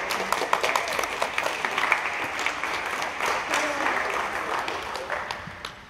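Audience applauding, with scattered voices among the crowd; the clapping dies away near the end.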